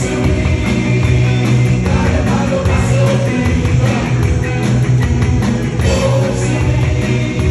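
Live Bangla rock band playing, electric guitar and keyboards over a steady beat, with a man singing into the microphone.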